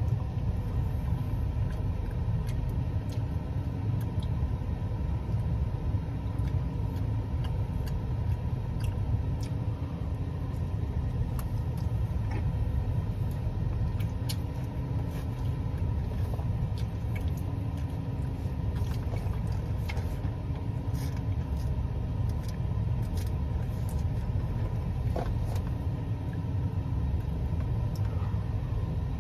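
Close mouth sounds of someone eating a roast beef sandwich: soft chewing with scattered small clicks and smacks, over a steady low rumble.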